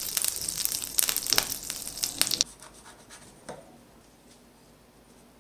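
Butter sizzling and crackling as it melts and foams in a frying pan. The sound cuts off abruptly about two and a half seconds in.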